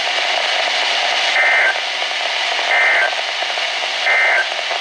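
NOAA Weather Radio sending the EAS/SAME end-of-message code (NNNN) three times: three short digital data bursts with about a second's gap between them, over steady radio static. It marks the end of the alert, here a required weekly test.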